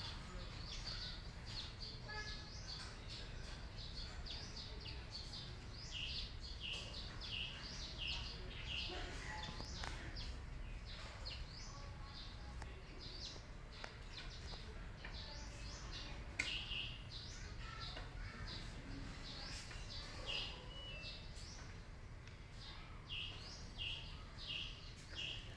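Small birds chirping repeatedly, short high chirps in quick runs, over a low steady rumble.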